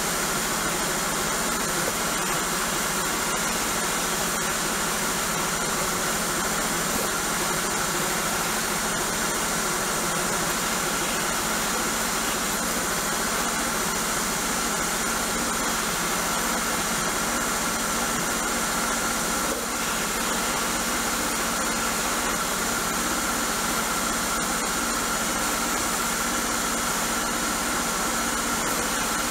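Sandblasting gun in a blast cabinet spraying grit against a cast iron lid: a loud, steady hiss of compressed air and abrasive, stripping the rust down to bare grey metal.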